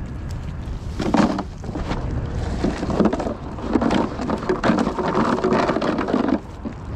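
A wet cast net swung and thrown close to the microphone, water spraying and dripping off the mesh. It comes as rough bursts of noise, one about a second in and a longer one from about two and a half to six seconds, over a low rumble of wind on the microphone.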